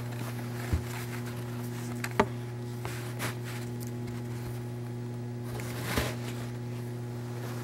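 A steady low electrical hum, with three soft knocks under a second, a little over two seconds and about six seconds in.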